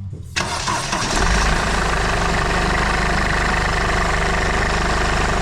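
2008 Mercedes E220 CDI's four-cylinder diesel engine started: a short burst of cranking, catching about a second in, then idling steadily on a new alternator pulley and new auxiliary belt.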